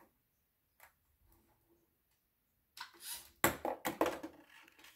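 A LEGO EV3 robot arm swings with a brief whir about three seconds in, then a ping pong ball lands and bounces in a quick run of sharp knocks that fade away within about a second and a half.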